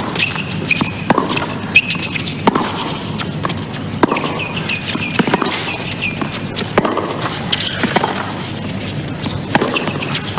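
Tennis rally on a hard court: the ball is struck by rackets and bounces off the court about once a second, with sneakers squeaking in short bursts as the players run.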